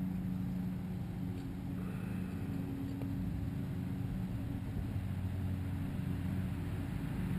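Steady low drone of an engine running at a constant speed, with a few held pitches that do not rise or fall.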